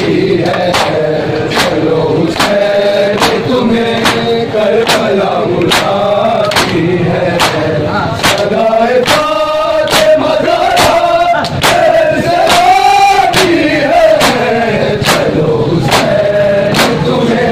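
Matam: a crowd of men chanting a mourning lament in unison while slapping their bare chests in time, sharp even slaps about one and a half a second under the voices. The chant swells louder twice in the middle.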